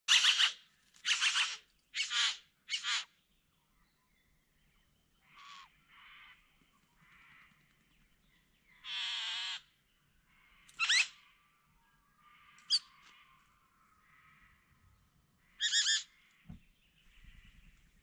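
Male satin bowerbird calling during his courtship display at the bower: four loud harsh calls in quick succession, then quieter calls, a longer buzzing note about halfway, a sharply rising call, and another loud harsh call near the end.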